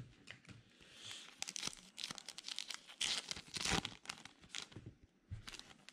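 Paper rustling and crinkling of a trading-card pack wrapper and cards being handled, a run of short rustles and clicks that is loudest about three seconds in.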